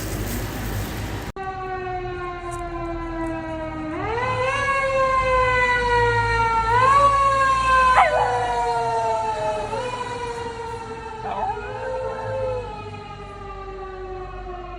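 Siren wailing, its pitch slowly falling and then jumping back up every few seconds, with a dog howling along in short swooping calls about two-thirds of the way in and again near the end.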